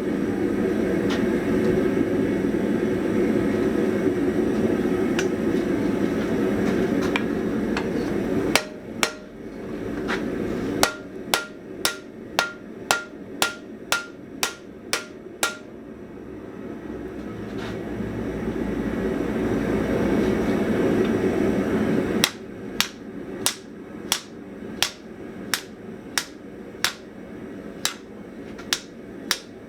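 Hand hammer striking hot steel on an anvil, flattening the bowing out of a bend in an anvil-shear rein. The blows come in two runs of evenly spaced, ringing strikes, about one and a half a second. Before each run there is a steady low rushing noise.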